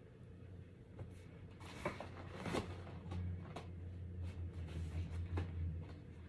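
Rustling and crinkling of a gift bag as a hand rummages inside it, with scattered light crackles and clicks. A low hum runs under the second half.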